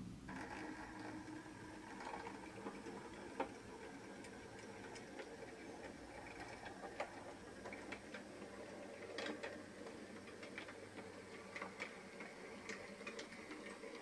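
H0e narrow-gauge model train running: the steady hum of a small electric motor, with irregular clicks from the wheels on the track.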